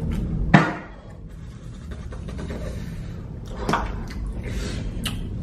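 Men breathing hard and blowing air out through pursed lips against the burn of extremely hot chicken wings, with a few mouth and eating clicks. A sharp click about half a second in is the loudest sound.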